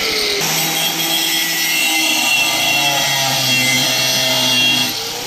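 Angle grinder with a cutting disc running and cutting into a steel shovel blade: a steady motor whine over a hissing grind, the pitch dropping about two seconds in as the disc takes the load.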